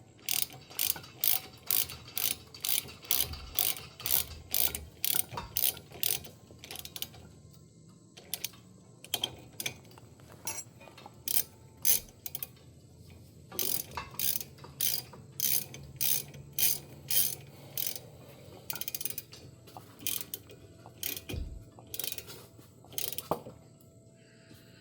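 Hand ratchet wrench clicking in runs of about two to three clicks a second, with short pauses between runs, as a bolt or nut is turned during brake reassembly.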